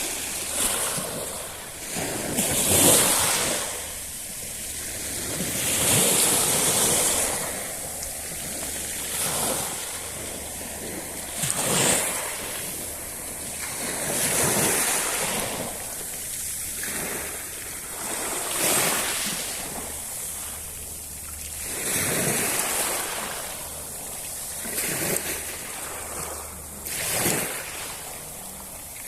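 Sea waves breaking and washing up the shore, a fresh surge about every three seconds.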